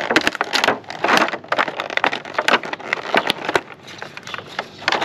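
Handling noise from an unboxing: irregular rustling and crackling of packaging material, mixed with sharp clicks and taps.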